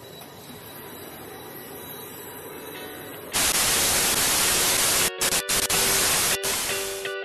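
Faint background noise, then about three seconds in a loud TV-static hiss, a white-noise sound effect, that cuts out briefly a few times near the end.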